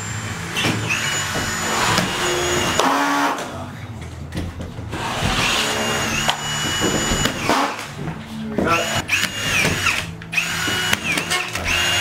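Senco cordless screw gun whining in about four short runs of one to two seconds each, speeding up and running down at the ends of each run, as it drives screws into plasterboard.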